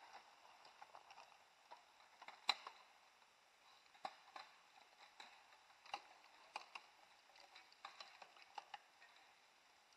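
Faint irregular clicks and clacks of mountain bikes riding past over a dirt forest trail, with one sharper click about two and a half seconds in.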